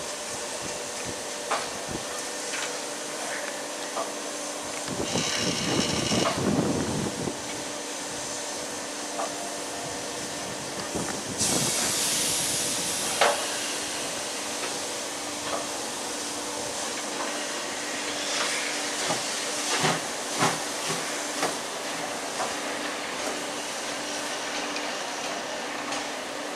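Steam locomotive hissing steam steadily, with a louder blow of steam about five seconds in and a sharp, high hiss of escaping steam around eleven seconds in, plus scattered metallic knocks.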